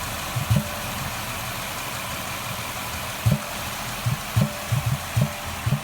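Ford Escape engine idling at the air intake, with irregular low thumps: two near the start, none for about two seconds, then a quicker uneven run of six or seven toward the end.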